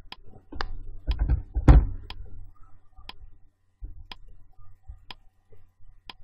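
Countdown timer's clock-tick sound effect, ticking about once a second. A louder thump comes about a second and a half in.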